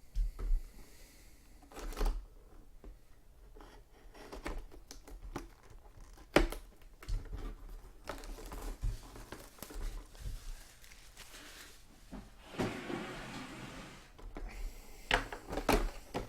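A cardboard box and its packaging being handled and opened by hand: scattered knocks and clicks, with a couple of seconds of rustling about 12 seconds in.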